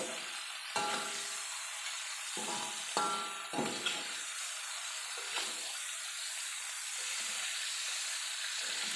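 Hot oil sizzling steadily in a wok as fried chilies, tomatoes, shallots and garlic are lifted out with a wire spider strainer. A few brief metallic sounds come from the strainer and spatula working against the wok.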